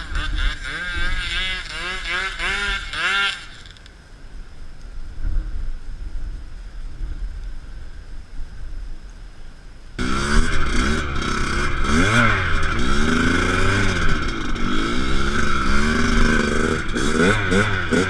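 Motocross bike engine revving up and down in quick repeated swells. It drops away to a faint low rumble about three and a half seconds in, then comes back loud suddenly about ten seconds in, rising and falling in pitch again.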